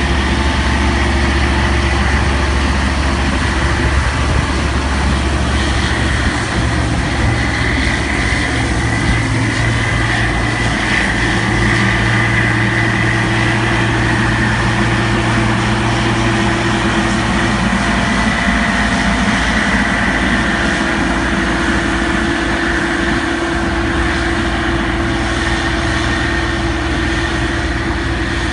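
Heavy diesel farm machinery running steadily: a combine harvester and a large four-wheel-drive tractor pulling a grain cart, unloading grain on the go. A steady high whine sits over the engine drone, and the engine note shifts about six seconds in.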